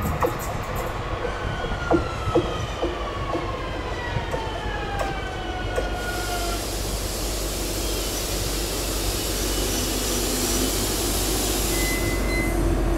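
Metrovalencia series 4300 electric train pulling in and slowing to a stop: a falling whine from its electric drive as it brakes, with a few clicks of the wheels over the rails in the first seconds, then a steady hiss as it comes to a halt.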